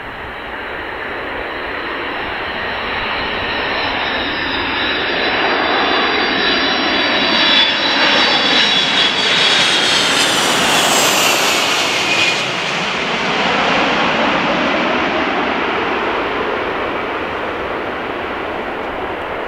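Boeing RC-135W Rivet Joint's four CFM56 (F108) turbofans on landing approach, passing low overhead: the jet roar builds, peaks as the aircraft passes over about ten seconds in, with a high fan whine that drops in pitch, then fades as it heads away to land.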